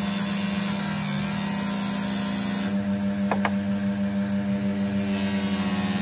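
T&T Classic 5-inch bench grinder running with a steady motor hum, its felt buffing wheel hissing as green polishing compound and then a steel knife blade are pressed against it. The hiss stops for a couple of seconds midway while the wheel spins free, with two light ticks, then returns near the end as the blade touches the wheel.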